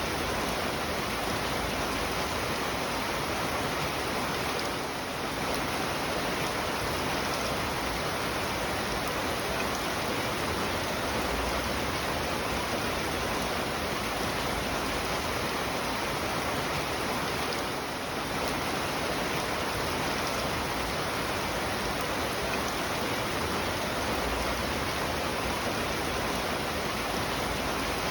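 Steady rain falling, an even rushing hiss of water that dips briefly twice.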